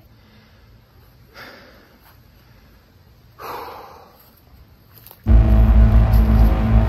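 Two soft breaths, the second a long exhale. Then, about five seconds in, loud, ominous film-score music with a deep bass drone starts abruptly.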